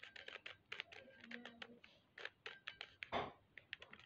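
A 3x3 Rubik's-type puzzle cube being turned by hand: quick, irregular plastic clicks as its layers turn, with one louder, longer rasp about three seconds in.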